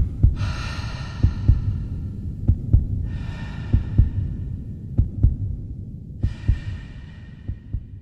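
Heartbeat sound effect: paired low thumps about every second and a quarter over a low hum, with three airy swells that rise and fade above it.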